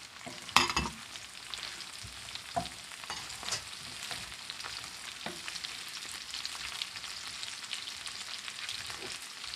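Steady sizzle of vegetables stir-frying in a pan, with a few sharp knocks of a utensil against the pan, the loudest about half a second in. Sliced chayote has just gone in with the carrots.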